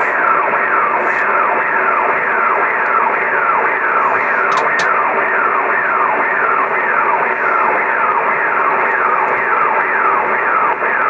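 Ham radio receiver on the 80-metre band at 3685 kHz putting out steady band hiss, with a repeating falling swish about twice a second: a strange swept signal of unknown origin that the operator suspects is coming over the North Pole.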